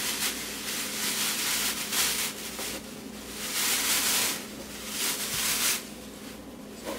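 Shredded Easter grass rustling as handfuls are pulled apart and shaken down into a fabric-lined basket, in several uneven swells of crackly rustle.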